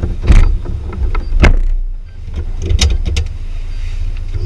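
Car noise: a steady low rumble broken by several sharp knocks and thumps.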